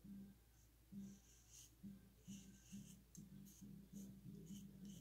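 Faint, short scratchy rubbing of hands handling and pressing together the damp halves of a clay sculpture, several times over, with a faint low hum that comes and goes.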